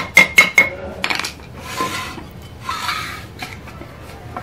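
A small hammer tapping metal on a donkey pump, about five light, ringing strikes a second, which stop under a second in. Then metal pump parts clink and scrape as they are handled.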